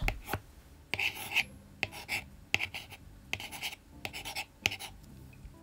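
A series of short scratchy strokes with small clicks, repeating about every half second to a second, like a pen or pencil scribbling.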